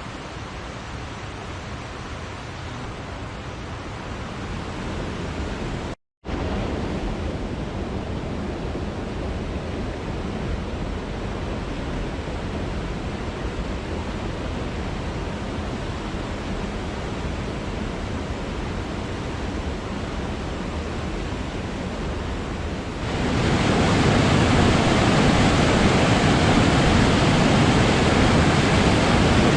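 Waterfall's falling water, a steady rushing noise. It cuts out for an instant about six seconds in, then returns, and grows louder about three-quarters of the way through.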